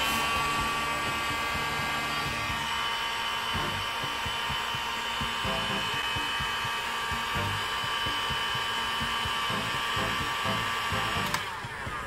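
Heat gun running steadily, a motor-fan whine over a rush of hot air, shrinking heat-shrink tubing over the crimped ferrule of a BNC connector. It cuts off with a click near the end and the whine dies away.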